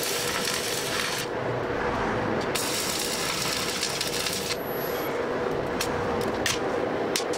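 Electric arc welding on scrap steel: the arc crackles and hisses in two runs, the first about a second long and the second about two seconds, over a steady hum. A few sharp clicks follow near the end.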